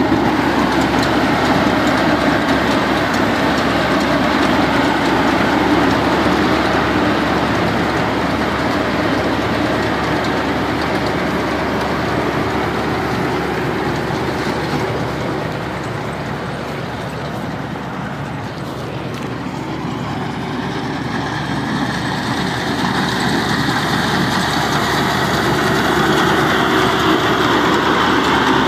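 Tracked rice combine harvester running steadily while cutting paddy, its engine and harvesting machinery giving a continuous loud mechanical drone that dips a little about two-thirds of the way through.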